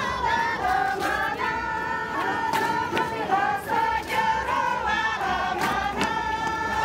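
A group of women singing together in unison, a chorus of many voices, with a few sharp knocks scattered through it.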